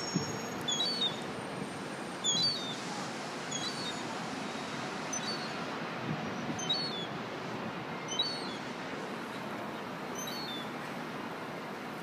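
Juvenile gull giving thin, high whistling calls, short and repeated about once a second, the begging call of a young gull. Steady city traffic noise runs underneath.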